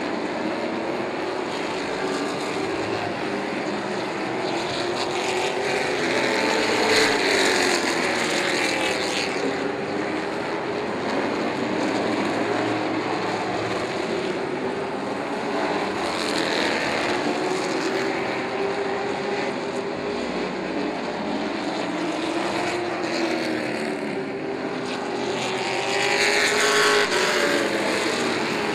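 Race truck engines running at speed around an oval track, their pitch rising and falling as the trucks pass. Louder pass-bys come about a quarter of the way in, near the middle, and near the end.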